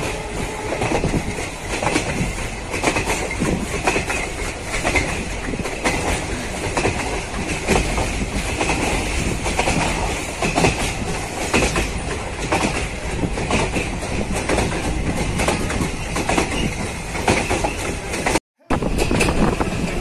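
Train running along the track, its wheels clattering over the rails. The sound cuts out for an instant near the end.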